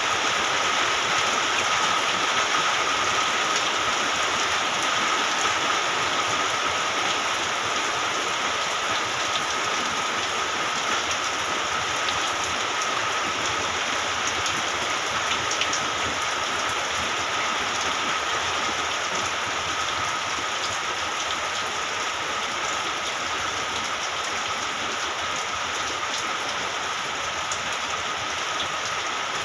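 Steady rain falling, a dense even hiss of drops with scattered single drop ticks, easing slightly in loudness toward the end. A thin steady tone runs beneath it throughout.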